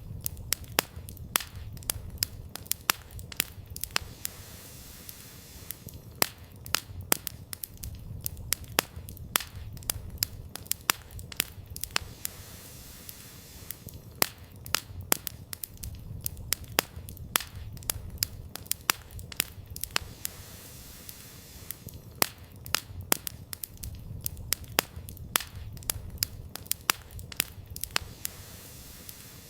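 Campfire burning, the firewood crackling with frequent sharp pops that come in denser clusters every few seconds, over a steady low rumble of the flames.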